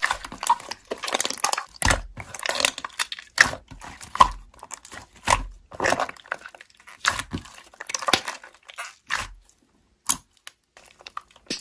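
Slime being squeezed and poked by hand, making irregular sticky crackles and soft pops, with a short lull near the end.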